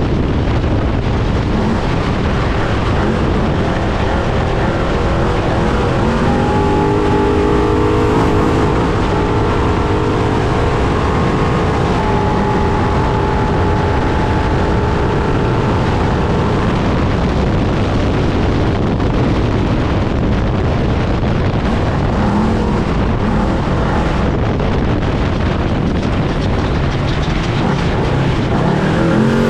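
Trophy truck engine running under load, heard from onboard, under a steady roar of wind and rumble noise. A clearer engine tone rises and falls in pitch from about six to sixteen seconds in.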